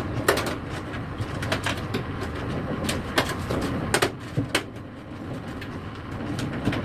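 Thin stamped-metal IO shield being pressed into the rear opening of a PC case, giving a string of sharp metallic clicks and snaps, about a dozen, irregularly spaced, as its edges seat.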